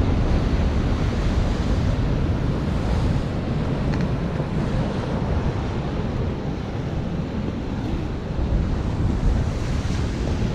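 Ocean surf washing onto the beach, with wind buffeting the microphone and a steady low rumble throughout.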